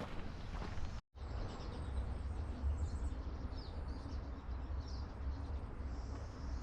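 Many small forest songbirds chirping, faint and scattered, over a steady low rumble; the sound cuts out for an instant about a second in.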